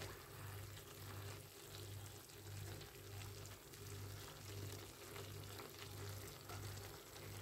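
Faint sizzling and bubbling of beef and vegetables stewing in their juices in a nonstick frying pan, with a spatula stirring through them. A low hum pulses on and off under it a little under twice a second.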